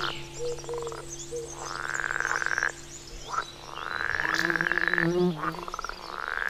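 Frogs trilling: three long pulsed calls, each about a second and a half, rising in pitch at the start, then holding steady and cutting off abruptly. Faint bird chirps sound behind them.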